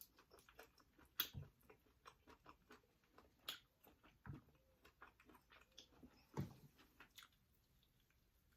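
Close-miked eating: quiet chewing and wet mouth smacks, a run of small clicks with a few louder smacks scattered through.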